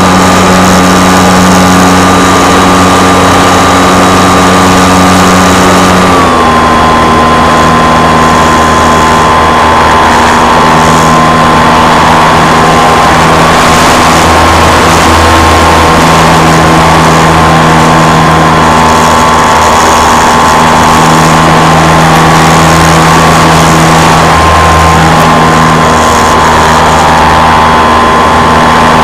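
Motor and propeller of a radio-controlled model aircraft, heard loud and close from on board. It is a steady droning whine that steps down a little in pitch about six seconds in as the motor slows slightly.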